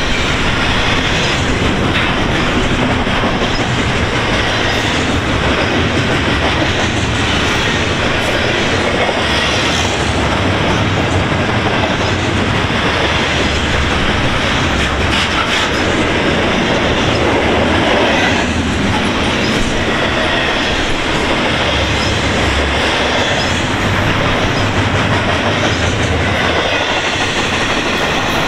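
Double-stack intermodal freight train of well cars passing at speed: steel wheels clattering over the rails with a steady, loud rumble.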